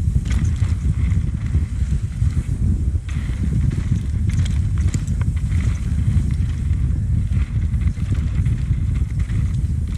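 Mountain bike descending fast on a dirt trail: heavy wind rumble on the camera's microphone, with tyre noise and scattered clicks and rattles from the bike over bumps.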